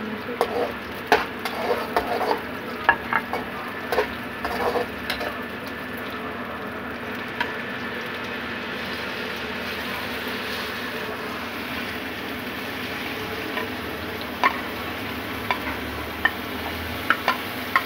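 Brinjal and onion slices frying in oil in a metal pot: a steady sizzle, with a spatula stirring, clicking and knocking against the pot during the first five seconds or so and again near the end.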